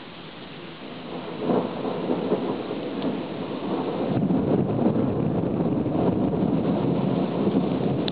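Thunder from an overhead thunderstorm: a sudden loud peal about a second and a half in that keeps rumbling, rising and falling, over the steady hiss of falling rain.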